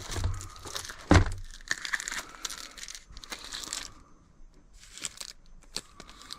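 Packaging crinkling and rustling as items are handled and pulled out of a box, with one heavy thump about a second in. The rustling dies down after about four seconds, leaving a few light clicks.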